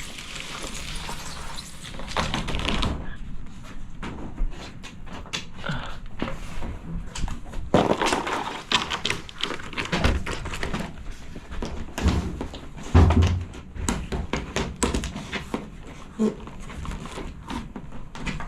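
Corrugated PVC roof panels being cut with scissors and handled: irregular crackling snips, rattles and knocks of the flexing plastic sheets, with a few heavier thuds.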